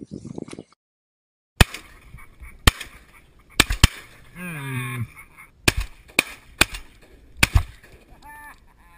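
Shotgun fired about nine times in quick succession, starting about a second and a half in, some shots in close pairs. A man's voice gives a short falling shout in the middle, and there are a few short repeated calls near the end.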